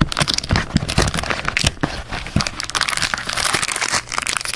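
Foil trading-card pack being torn open and crinkled by hand: dense irregular crackling and tearing with sharp snaps.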